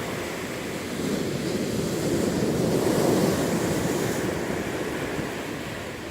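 Stormy sea surf: waves breaking and rushing, swelling to a peak about halfway through and easing off toward the end.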